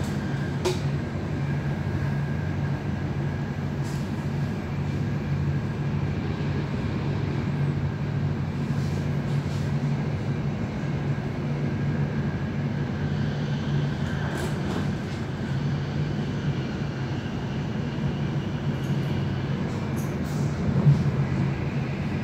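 Inside an NS VIRMm double-deck electric train running at speed: a steady rolling rumble of the wheels on the rails with a low hum, broken by a few short clicks, the loudest near the end.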